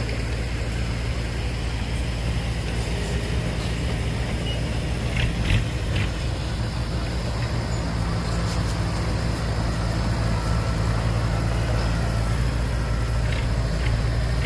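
Heavy diesel machinery engine running steadily, a low, even rumble.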